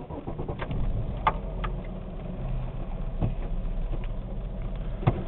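1998 Oldsmobile Cutlass's 3.1-litre V6 starting up and settling into a steady idle, with a few light clicks.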